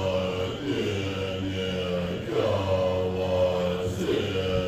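Tibetan Buddhist monks chanting prayers together in low voices, in long held notes.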